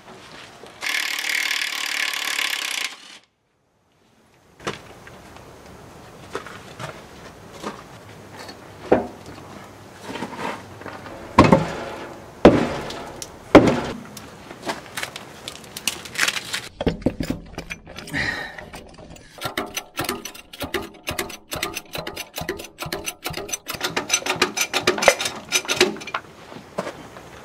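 Hand-tool work on a tractor's rear wheel and hub: a loud burst of tool noise lasting about two seconds, then scattered metal knocks and clanks, three of them loud about halfway through, and in the last third a fast run of clicking.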